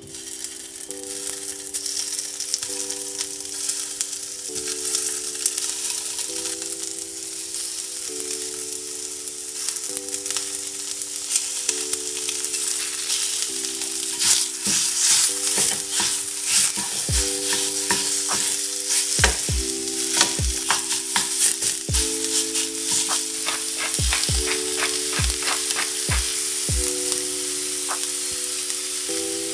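Raw crumbled turkey sausage sizzling as it fries in a hot skillet. From about halfway in, a wooden spoon knocks and scrapes in the pan as it breaks up and stirs the meat. Soft background music plays underneath.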